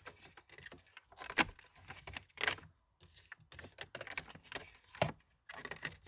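Hard plastic interior trim panel and its wiring being handled: irregular clicks, taps and light rattles as the USB adapter's wires are fed through the panel, with a few sharper knocks about one and a half, two and a half and five seconds in.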